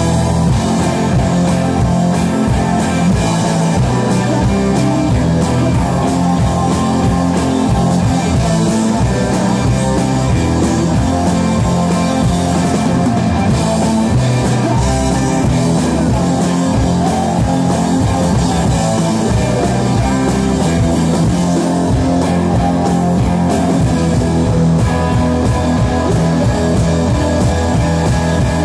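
Live rock band playing loudly and without a break: electric guitars, bass guitar and drum kit.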